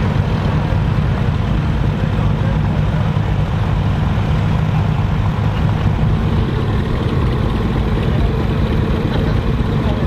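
Many vintage Volvo BM and Bolinder-Munktell tractor engines idling together in a line, a steady low engine sound with no change in pitch.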